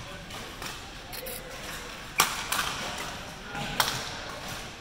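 Badminton rackets striking a shuttlecock twice in a rally: two sharp smacks about a second and a half apart, the first the louder, each echoing in a gymnasium.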